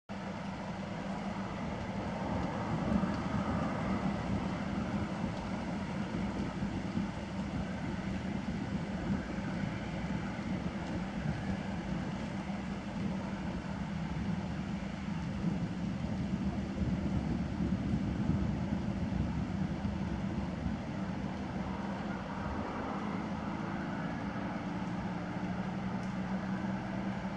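Steady low rumble of distant road traffic, with a faint engine note rising near the end.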